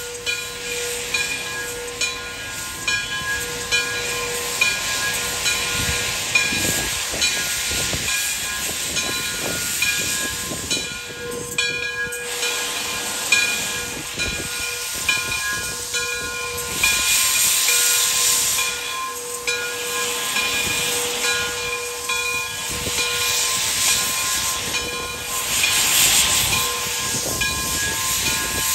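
Frisco 1630, a 2-8-0 steam locomotive, rolling slowly forward with its cylinder cocks open, steam hissing out in surges that swell loudest twice in the second half. A steady ringing of its bell carries through.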